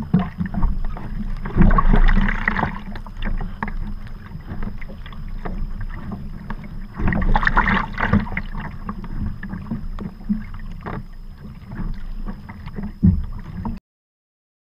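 Sea kayak paddle strokes splashing through choppy water, with a steady low rumble of wind on the deck-mounted microphone. Louder surges of splash and spray come about two seconds in and again around seven and a half seconds, and the sound cuts off suddenly near the end.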